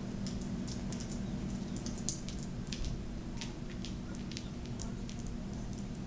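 A dog's toenails clicking irregularly on a hard floor as it walks about, over a steady low room hum.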